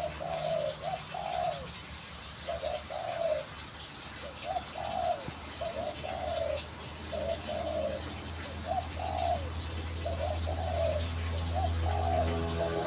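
A dove cooing: short rising-and-falling notes in groups of two or three, repeated every second or two. Music fades in near the end.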